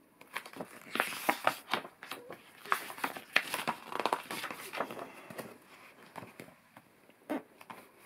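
A paper page of a picture book being turned by hand: a run of crinkling and rustling paper crackles lasting about six seconds, with one last crackle near the end.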